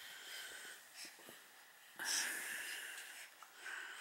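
Soft, wheezy breathing: three noisy breaths, the loudest one about two seconds in.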